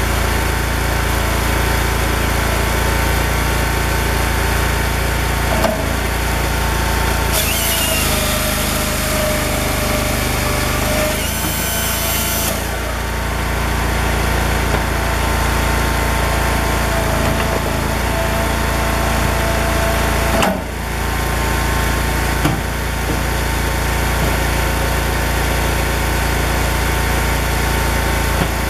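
Cord King M1820 firewood processor running steadily on its engine. About seven seconds in, its chainsaw bar cuts through a log for about five seconds, a loud rushing noise over the engine drone.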